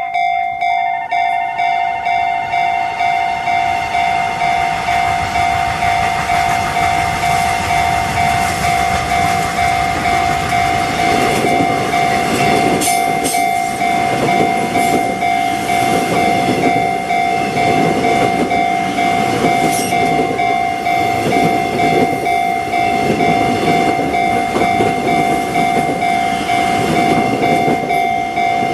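Japanese electronic level-crossing warning bell ringing in a steady, evenly repeating pulse. From about ten seconds in, a train runs through the crossing, its rumble and rhythmic wheel clatter rising beneath the bell.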